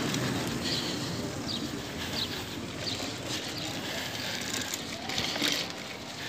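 Bicycle ridden over brick pavers and cobblestones: a steady rolling noise of the tyres on the stones.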